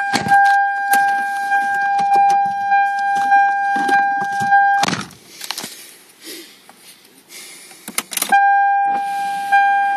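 1992 Toyota Camry's dashboard warning chime sounding continuously with a slight pulse. It cuts off at a thump about five seconds in, and after rattling and clicks from the ignition key it starts again just after eight seconds.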